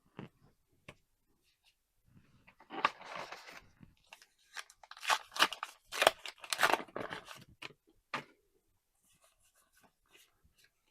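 Foil wrapper of a trading-card booster pack being torn open and crinkled: a short rip about three seconds in, then a longer run of scratchy rips and rustles until about eight seconds in.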